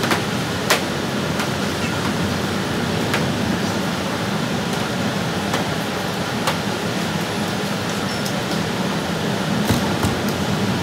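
Steady hiss of a self-serve car wash's high-pressure spray wand, with a few sharp ticks scattered through it.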